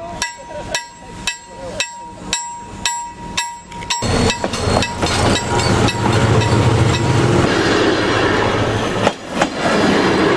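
A diesel locomotive hauling a coach passes close by. First comes a sharp ticking about twice a second over a steady high tone. About four seconds in, the engine's loud low rumble starts, and near the end it eases into the noise and rattle of the passing train.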